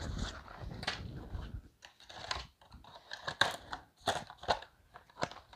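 Boxes and packaging being rummaged through and pulled off a pallet: irregular crinkles, crackles and light knocks.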